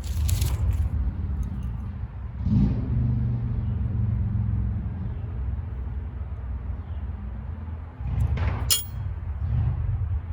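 Steady low mechanical rumble, with sharp metal clinks of hub parts or tools being handled in the first second and again about eight and a half seconds in.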